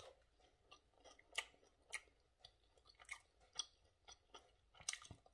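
Faint chewing of a breaded fried chicken nugget: short, irregular crunchy clicks a second or less apart, with no speech.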